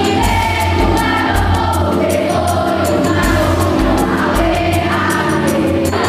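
A mixed group of school students singing together as a choir over accompaniment with a steady beat.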